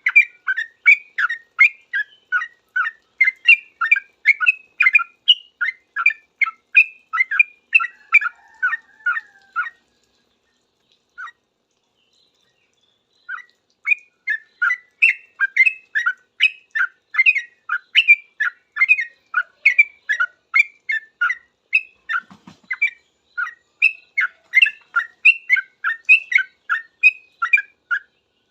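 Sooty-headed bulbul (trucuk) calling in a fast, unbroken string of short chirps, about three a second, in the rapid 'ropel' style. The calling stops about ten seconds in, and after one lone note and a pause of a few seconds it picks up again and runs on.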